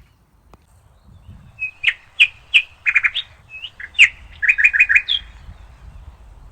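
A small bird chirping: a quick run of short chirps and trills starting about a second and a half in and stopping around five seconds in.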